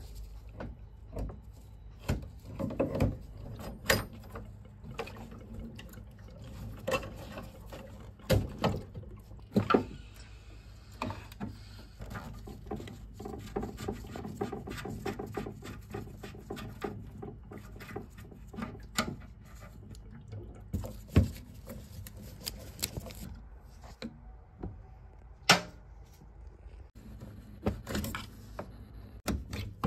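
Irregular clicks and knocks from hands and tools working inside a Vaillant combi boiler around its pump and expansion vessel, with a faint low rush of water as the boiler is drained down.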